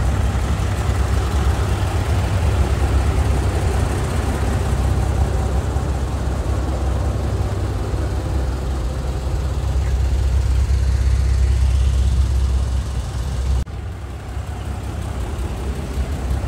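Large truck engine running steadily with a deep low rumble. The sound drops abruptly and becomes quieter about thirteen and a half seconds in.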